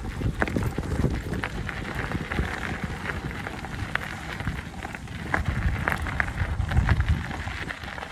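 Bicycle tyres rolling over a gravel path, a continuous crunching crackle with rattles from the bike, heard through a handlebar-mounted camera as a heavy low rumble.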